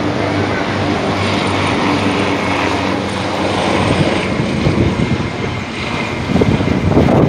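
Helicopter flying low overhead: steady rotor and engine noise, with the beat of the rotor blades coming through more strongly from about halfway on.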